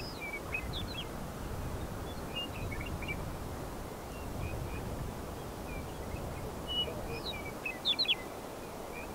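Small songbirds chirping in short, high notes scattered through, with a quick run of sharper notes just before the eight-second mark, over a steady low wind rumble.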